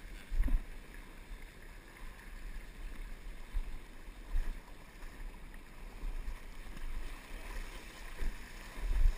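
Steady rush of river water with wind buffeting the microphone, broken by a few low thumps, the loudest about half a second in and just before the end.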